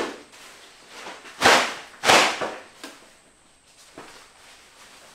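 A Wahl barber cape being shaken out: two sharp fabric snaps about half a second apart, then a smaller flap and soft rustling as it settles.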